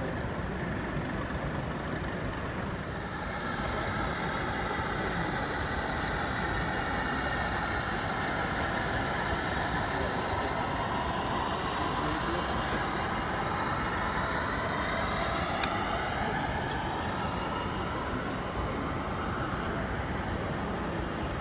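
Steady hubbub of a busy model railway exhibition hall, with model trains running on the layouts and a thin steady high whine through most of it.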